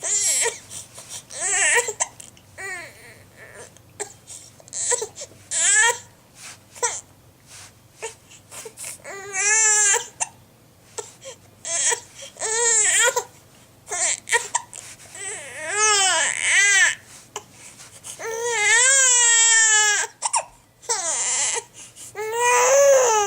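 Young child crying in repeated bursts: short sobs between several long, wavering wails, upset at hiccups she can't get rid of.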